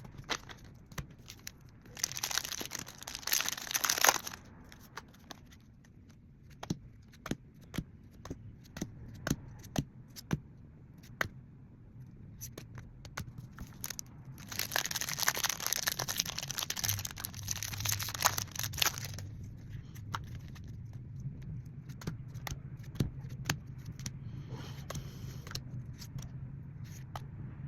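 Crinkly wrapping of Pokémon card packaging being torn open and crumpled in two stretches, with small clicks and taps of handling between them.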